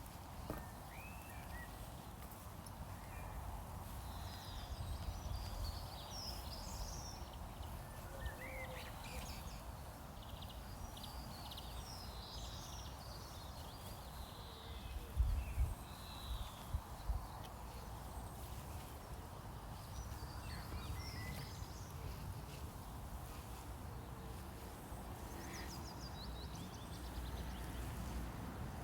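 Outdoor nature ambience: birds chirping and trilling on and off over a steady background hiss, with a few low thumps about halfway through.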